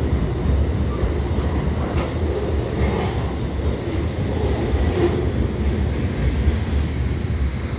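Train passing beneath a bridge: a steady, heavy rumble with a few faint clicks of the wheels on the rails.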